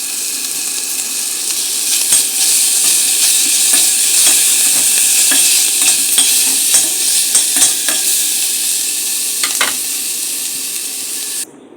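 Chopped calabresa sausage, bacon, onion and garlic paste frying in a pan, a steady sizzle with a spoon stirring and clicking against the pan. The sizzle cuts off suddenly near the end.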